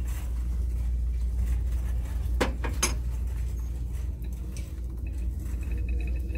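A ceramic cup set back down on a metal store shelf, two sharp clinks about half a second apart, over a steady low rumble.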